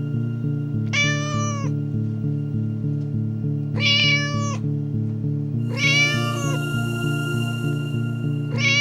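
Cat meows over background music: four short, alike meows spaced about two to three seconds apart, with a faint hiss in the second half.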